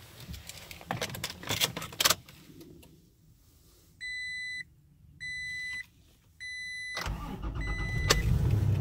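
Clicks and rattles of a flashing cable being unplugged, then three evenly spaced dashboard chime beeps. About seven seconds in, the Tacoma's 3.5-litre V6 starts and keeps running, on its first start after an ECU reflash, with the chime beeping twice more over it.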